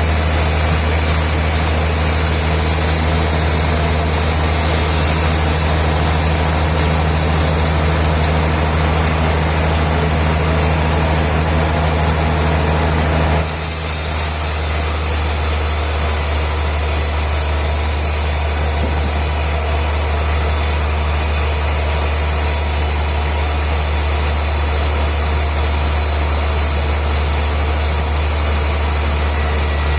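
Industrial bandsaw mill machinery running with a steady, loud, low machine hum. About thirteen seconds in the sound changes abruptly, becoming slightly quieter with a brighter high hiss.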